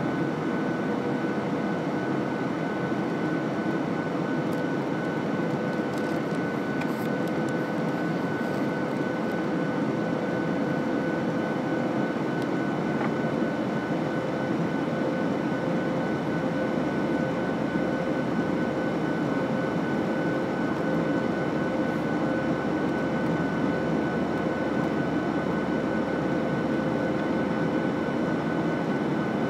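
Airliner cabin noise in flight, heard beside the wing: the turbofan engines' steady drone and rushing airflow, with a constant hum and a higher steady whine on top.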